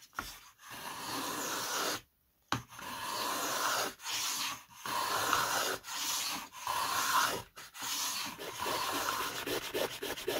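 Small razor plane shaving balsa wood in repeated strokes, each about a second long with short pauses between; near the end the strokes come quick and short, about three a second.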